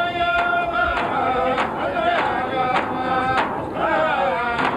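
A group of voices singing a chant-like song over large handheld frame drums struck together in a steady beat, a little under two strikes a second.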